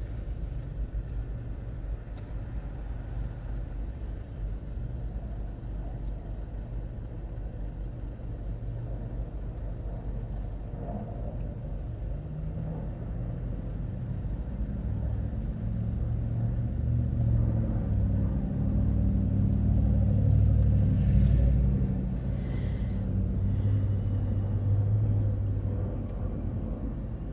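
A motor vehicle's engine rumbling, growing louder through the middle and then easing off near the end.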